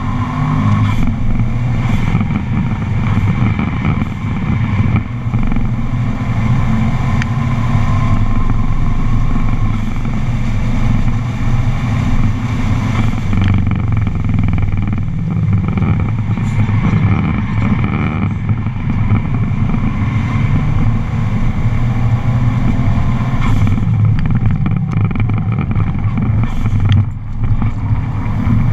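Subaru engine working hard on a circuit lap, heard from inside the cabin, with a steady low drone mixed with road and wind noise. The engine note drops briefly a few times, most clearly near the end.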